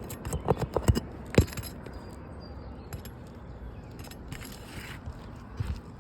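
Several sharp taps and knocks in the first second and a half, then quieter scraping, with a couple more knocks near the end: tools and hands working loose asphalt shingles on a roof.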